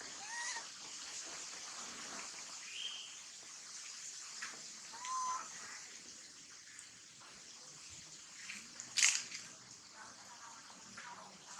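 A few short, arched high-pitched calls from a monkey, of the kind a young monkey makes when denied milk, with a brief sharp louder sound about nine seconds in, over a steady high hiss.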